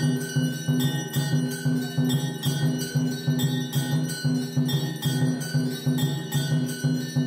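Devotional music with ringing bells, held tones over a quick, steady beat.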